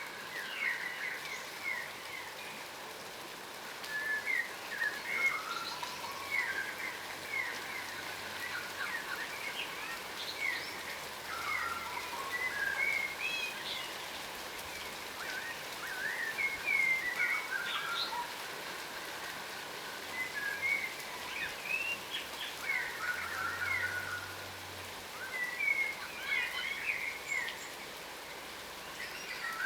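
Yellow rosellas (a subspecies of crimson rosella) giving many short chirps and chattering calls in irregular bursts, over a steady hiss.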